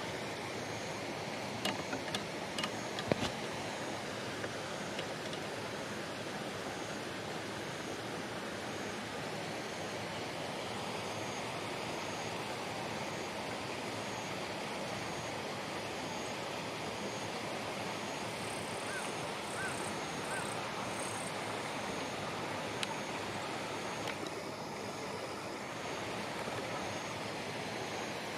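Steady hiss of light rain falling on leaves, with a few sharp clicks about two to three seconds in.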